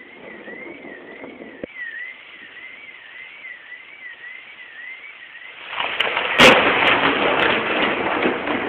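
Thunder from a close lightning strike: the noise swells suddenly, a sharp crack comes about six and a half seconds in, and a long rumble follows. Before it, a faint high warbling tone repeats about twice a second.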